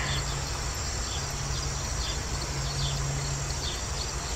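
Outdoor insect chorus: crickets trilling high and steady, with scattered short chirps and a steady low hum underneath.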